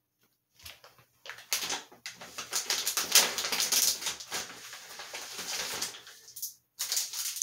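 Plastic snack pouch of chocolate bark being opened and handled: the packaging crinkles and rustles in a dense run of crackles. It stops briefly near the end, then gives one more short rustle as a wrapped piece is pulled out.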